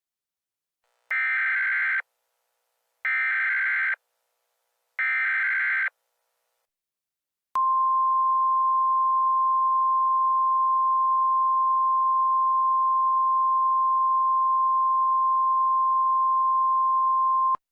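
Emergency Alert System header: three one-second bursts of warbling digital data tones about a second apart. Then a steady single-pitch alert tone is held for about ten seconds and cuts off sharply.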